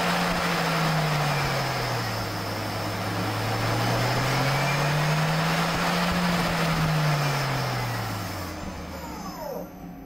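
Doosan Puma 2600SY CNC lathe spindle running during a turning pass, over a steady hiss of cutting; the spindle hum slides down, back up and down again in pitch as the spindle speed changes, then fades away near the end.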